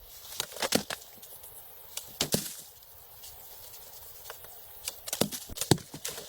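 Irregular knocks and clatter from something being handled: a few sharp strikes, a pair just after two seconds in, and a quicker cluster near the end.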